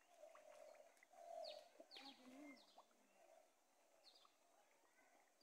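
Faint birdsong: a dove cooing in a few low hoots, with short, high, downward chirps from small birds.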